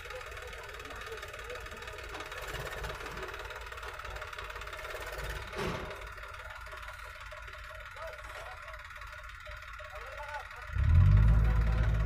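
Heavy diesel machinery running faintly in the background, then from about eleven seconds in a diesel engine close by comes in loud with a low, steady hum.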